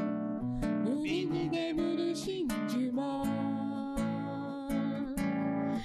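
A man singing to his own acoustic guitar, the guitar strummed in chords under his voice.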